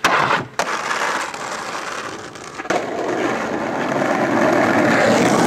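Skateboard popping at the start and landing on a bench about half a second in, then scraping along it. A knock comes near the middle, and the wheels roll on rough asphalt, growing louder toward the end.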